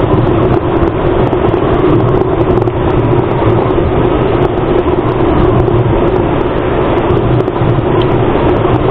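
Motorcycle running at a steady cruising speed, its engine hum mixed with a constant rush of wind and road noise at the bike-mounted camera.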